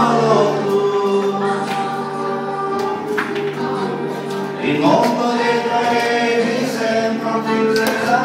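A man singing a song with musical accompaniment, holding long, steady notes.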